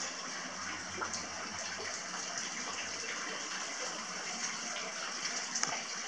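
Steady rush of hot-spring water pouring into an onsen bath, with a couple of light knocks about a second in and near the end.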